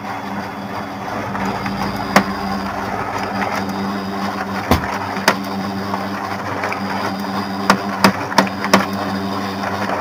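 Pantum M7102DW laser printer running, its drive motor humming steadily, with sharp gear knocks now and then that come quicker near the end. The knocking is the printer's gear noise, which the owner puts down to a gear pressing too hard against the gear below it.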